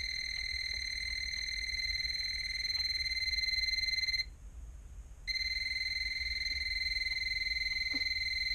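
Non-contact voltage tester pen held next to a ceiling light's wire, sounding a steady high-pitched beep that signals the wire is still live. The tone breaks off for about a second midway and then resumes.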